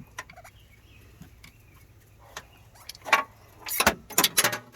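Hand handling of a cable-lug crimping tool and lugs: quiet for a few seconds, then a series of short, sharp metal clicks and knocks about three seconds in, several in quick succession near the end.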